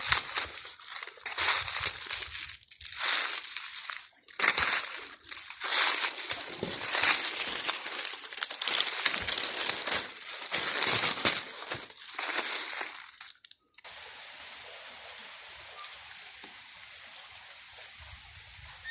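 Irregular rustling and crunching in uneven bursts with short pauses. About 13 seconds in it cuts off suddenly to a steady, quieter hiss.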